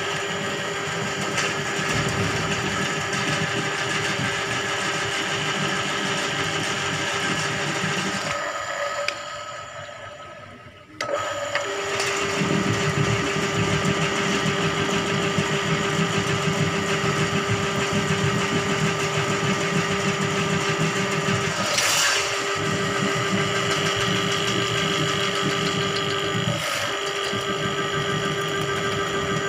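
Electric drain-cleaning machine running, its motor turning a coiled steel spring cable down a clogged drain. The motor runs steadily, winds down about nine seconds in, and starts again abruptly about two seconds later.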